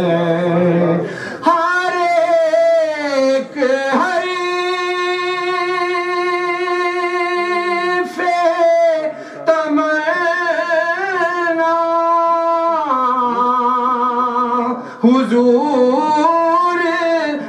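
A man singing a naat in Urdu, stretching the vowels into long melismatic runs between the lines, with one note held steady for about four seconds near the middle. The word 'Huzoor' comes in at the very end.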